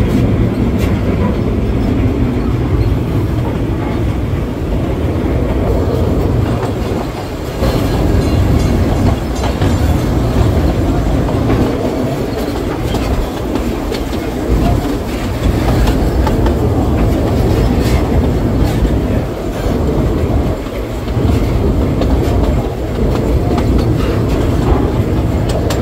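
Old-style passenger train running along the track: a steady rumble with the wheels clacking over the rail joints, heard through an open carriage window.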